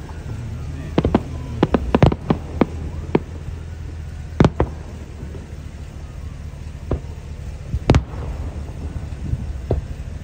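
Aerial fireworks shells bursting: a quick cluster of sharp bangs and crackles one to three seconds in, then single louder booms about four and a half and eight seconds in, with a few fainter pops between, over a steady low rumble.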